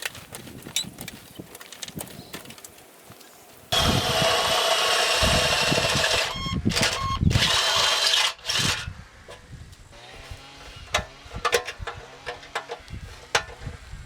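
Small two-stroke chainsaw engine cutting in suddenly about four seconds in and running loudly for about five seconds, with its pitch wavering, before dropping away; scattered clicks and knocks before and after.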